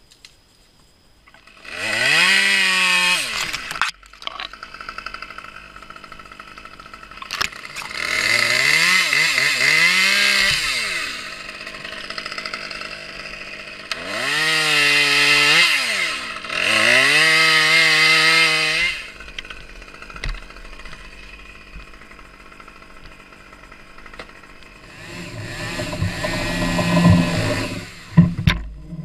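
Arborist's chainsaw revved up four times for about two to three seconds each, its pitch climbing, holding and falling back to idle between bursts while cutting birch branches. Near the end comes a lower, rougher burst.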